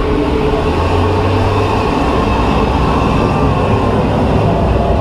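Loud, steady rumbling and rushing from a theme-park ride's water and steam effects erupting around the tour boat, with a heavy low rumble throughout.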